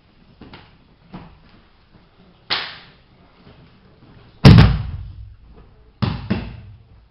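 Bodies and bare feet hitting a martial-arts mat during a throw: a few light slaps and stamps, then the loudest heavy thud about four and a half seconds in as a person is thrown onto the mat, followed by two more thuds close together a little later.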